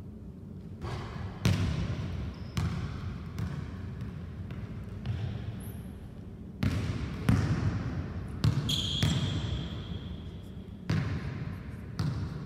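Basketball bouncing on a hardwood gym floor, about a dozen uneven bounces spaced irregularly, each ringing briefly in the large hall. A short high squeak about nine seconds in.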